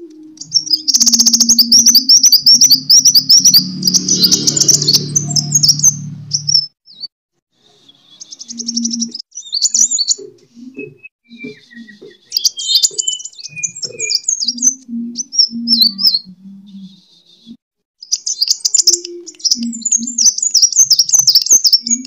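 A caged sunbird singing in rapid, high-pitched twittering trills, in three loud bouts separated by short pauses. This is an agitated, fighting-style song.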